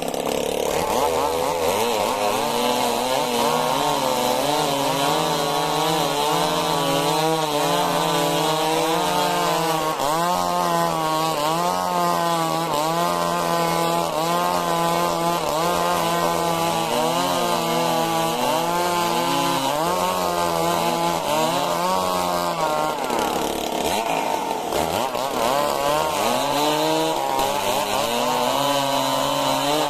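Stihl MS 382 two-stroke chainsaw running hard while cutting a majau log lengthwise. Its engine pitch dips and recovers again and again as the chain bogs under load and frees up.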